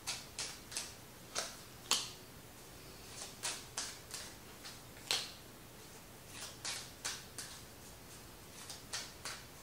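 Tarot cards being handled and laid on a table: about fifteen soft, short clicks and taps at irregular intervals. The sharpest comes about two seconds in and another strong one about five seconds in.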